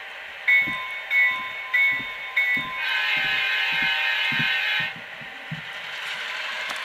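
Tsunami sound decoder in an HO-scale SW1500 model switcher sounding its locomotive horn through the model's small speaker: four short toots, then one long blast of about two seconds that stops abruptly.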